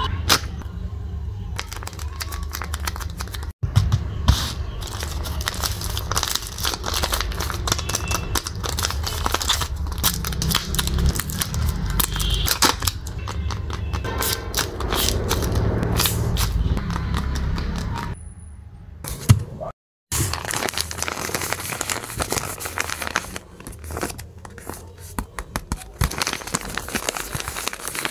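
Paper blind bags handled by hand, crinkling and rustling in a dense run of crisp crackles and taps, with a brief break near twenty seconds.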